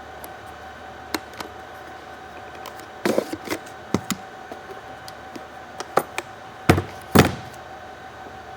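Scattered clicks and knocks of a Panasonic Toughbook CF-18 laptop being handled, its rugged case and covers being worked, with the two loudest knocks close together near the end, over a steady high-pitched hum.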